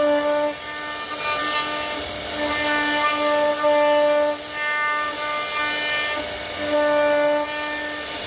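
Background music: a melody of held, changing notes over a steady low drone.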